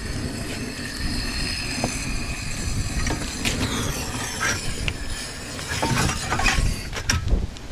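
Portable camping gas stove burner, freshly lit, running with a steady rushing noise, with a few light knocks and clicks over it.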